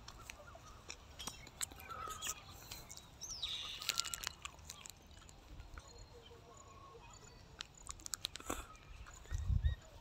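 Small metallic clicks and ticks of an Allen key working the Allen bolt of a motorcycle timing-chain tensioner roller, with a dull thump near the end. Birds chirp in the background.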